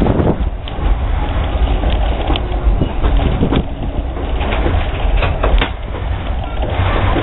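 Tourist-railroad passenger coach rolling along the track: a steady low rumble of wheels on rail with a few sharp clicks.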